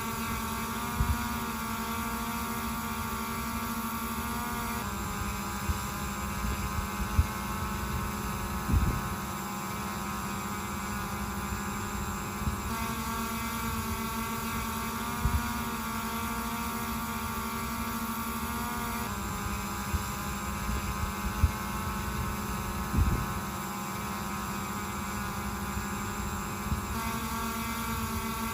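DJI Mavic Air 2 drone hovering, its propellers giving a steady, even hum. The pitch and tone shift slightly at a few sudden breaks as the recording switches between the two propeller sets, and a few short low thumps stand out.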